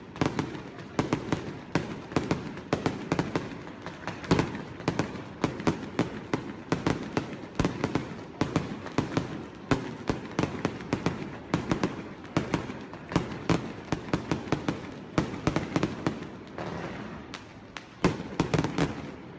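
Fireworks display going off: a dense, irregular run of sharp bangs and cracks, several a second, without a break.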